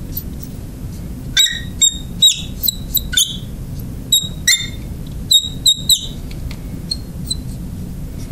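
Marker squeaking on the glass of a lightboard while writing: about a dozen short, high squeaks, bunched between about one and a half and six seconds in, over a steady low hum.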